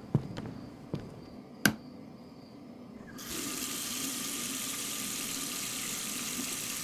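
A few footsteps on a wooden floor, then, about three seconds in, a bathroom sink tap is turned on and water runs steadily into the basin.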